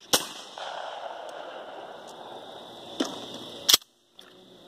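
Shotgun reports at a trap range: a sharp shot just after the start, a fainter crack about three seconds in and the loudest shot just after it. Then the recording cuts out for a moment.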